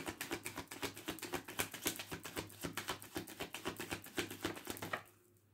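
A deck of tarot cards being shuffled by hand: a rapid run of soft card clicks, about ten a second, that stops about five seconds in.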